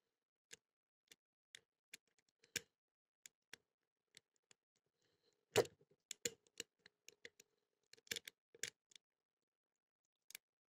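Small metallic clicks of a pick and tension wrench working the pin tumblers of a Blossom brand pin-tumbler padlock during single-pin picking. The clicks are faint and irregular, the loudest one a little past halfway with a short ring after it.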